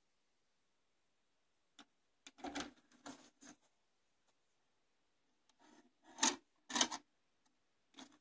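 Yamaha CDX-480 CD player being loaded: a button click and the disc tray sliding open, then plastic clatter as a disc is laid in the tray, with two sharp clacks the loudest, and a button click near the end.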